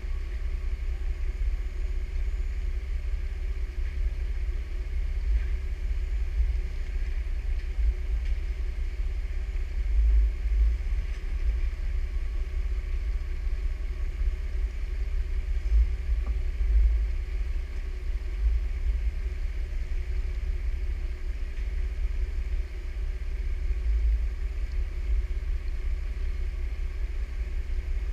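Jeep engine idling, a steady low rumble picked up through the hood it is mounted on, swelling briefly around ten and seventeen seconds in.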